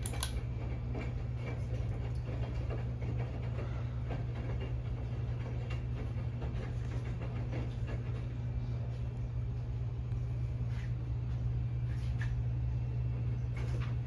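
Mainstays hugger ceiling fan running at its low speed: a steady low motor hum, with a few faint ticks.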